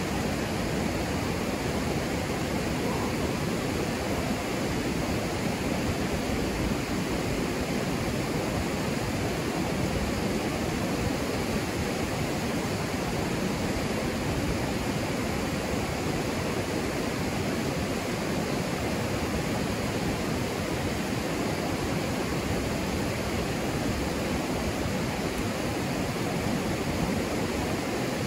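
River rapids rushing: a steady, unbroken roar of fast water over rocks.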